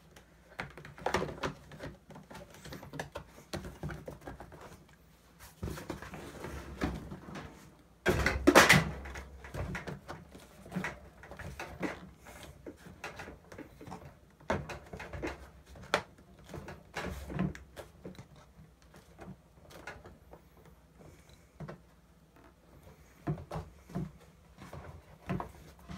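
A speaker and its mounting ring being handled and fitted by hand: scattered knocks, clicks and rustling of parts being shifted and pressed together, with a louder clunk about eight seconds in.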